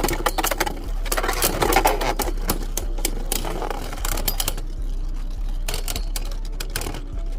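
Beyblade Burst spinning tops clattering against each other and the walls of a plastic stadium: a rapid rattle full of sharp clicks, which thin out after about four and a half seconds.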